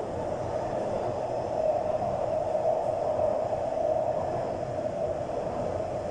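Taipei Metro train running between stations, a steady even noise of wheels and running gear on the track.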